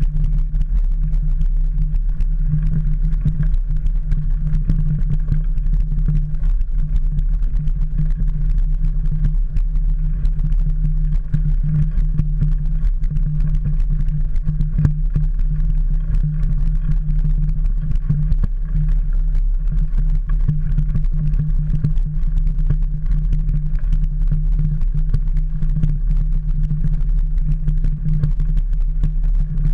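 Mountain bike riding over a dirt trail, heard through a handlebar-mounted camera: a steady low rumble with a constant scatter of small rattles and knocks from the bumps.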